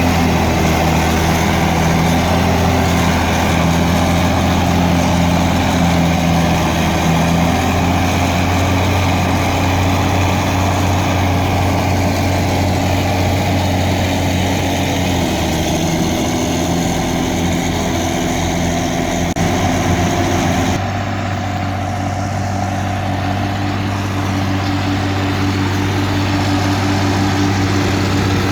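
Case 1694 tractor's six-cylinder diesel engine running steadily while ploughing. Its note shifts slightly about halfway, and about three-quarters through the sound turns duller and a little quieter.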